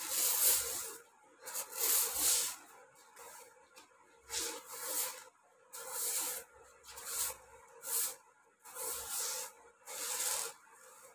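A short grass broom sweeping a concrete floor in about ten separate brushing strokes, each a dry scratchy swish.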